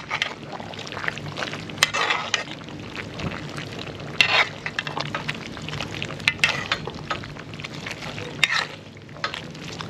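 Pot of Jamaican stew chicken sizzling as it is stirred, with a spoon scraping and knocking against the pot about every two seconds.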